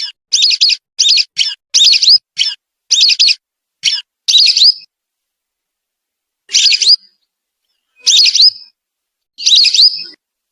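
Lesser whistling duck calls used as a lure recording: a quick series of short, high whistled notes, then after a pause three longer gliding whistles spaced about a second and a half apart.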